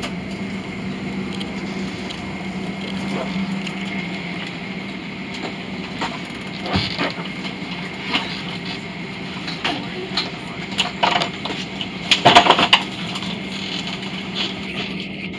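Airliner cabin during boarding: a steady ventilation hum, with scattered knocks and rattles of passengers stowing bags in the overhead lockers, the loudest a short burst of clatter about twelve seconds in.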